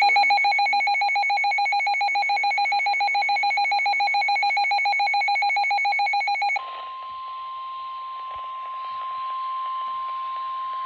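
A loud electronic alert tone, rapidly pulsing, cuts off about six and a half seconds in. It is replaced by a single steady weather-radio alarm tone over radio hiss, the signal that introduces a tornado warning broadcast.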